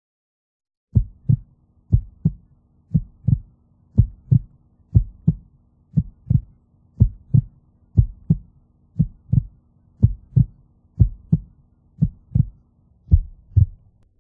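Heartbeat sound effect: low double thumps, lub-dub, about once a second, starting about a second in, over a faint steady low drone.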